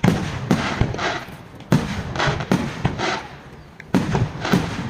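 Aerial fireworks bursting: a string of about ten sharp bangs at uneven intervals, a few tenths of a second to a second apart, each trailed by a rumbling echo.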